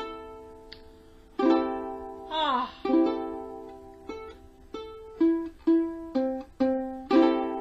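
Kala Ukadelic soprano ukulele strummed across its open strings a few times, then single strings plucked one after another, checking that the GCEA tuning holds. About two seconds in there is a brief falling glide.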